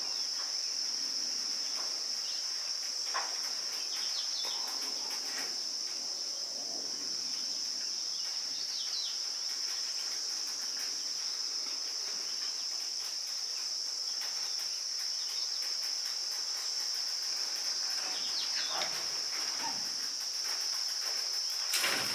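A steady, high-pitched insect chorus holding one unbroken note, with a few brief bird chirps over it. It cuts off suddenly at the end.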